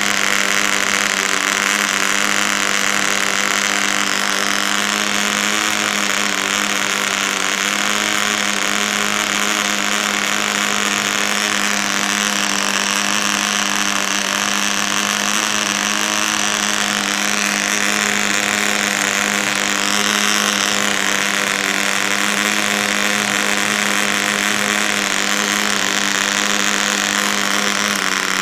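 PAW 55 two-stroke model diesel engine running steadily at high speed while being run in, a loud, even high-pitched buzz with no change in pitch.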